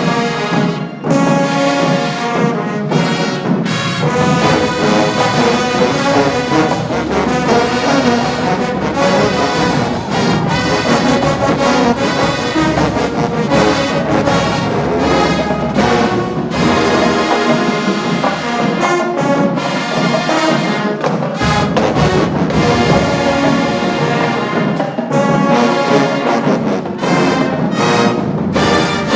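HBCU-style marching band playing loudly, brass (trombones and trumpets) carrying the tune over drumline percussion.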